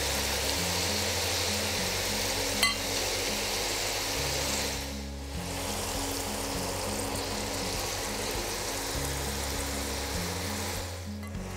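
Gram-flour-coated okra deep-frying in hot oil, a steady sizzle while it is stirred with a slotted spoon, over background music with a stepping bass line. The sizzle briefly drops away about five seconds in and again near the end, and there is one short click about two and a half seconds in.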